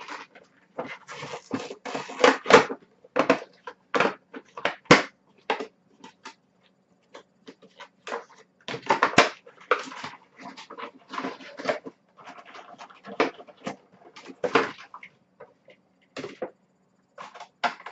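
Cardboard box and plastic packaging being opened by hand: irregular rustling and crinkling with several sharper snaps.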